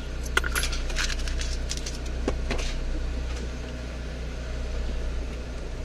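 Car engine idling at a standstill with a steady low hum. There are a few light clinks and clicks in the first three seconds as coins are handed over for the fare.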